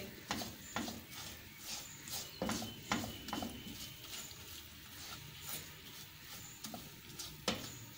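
Silicone spatula stirring and scraping khoya and sugar around a nonstick frying pan, with soft irregular knocks and taps against the pan.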